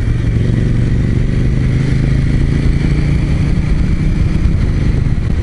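KTM 790 Duke's parallel-twin engine running at a steady road speed, heard from the rider's seat, over a low rushing noise.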